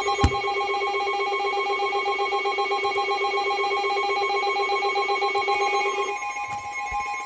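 Several electronic emergency alert tones sounding together, held and pulsing rapidly. The lowest tone cuts off about six seconds in while the higher tones keep going.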